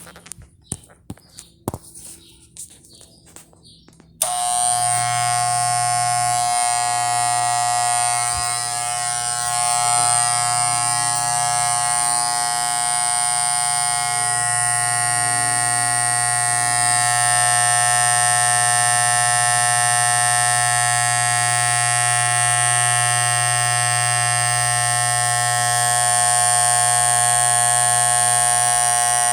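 A few light clicks of handling, then about four seconds in an electric hair clipper switches on and runs with a steady buzz, its blade freshly adjusted.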